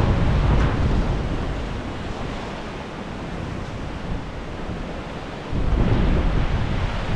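Storm wind gusting over the microphone, a low buffeting rumble under a hiss that eases about two seconds in and surges again about five and a half seconds in.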